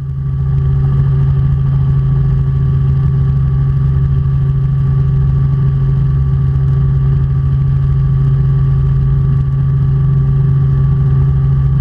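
Robinson R44 Clipper II helicopter running, heard in the cabin: a loud, steady drone of its six-cylinder piston engine and rotors with a strong low hum, swelling in over the first half second and then holding unchanged.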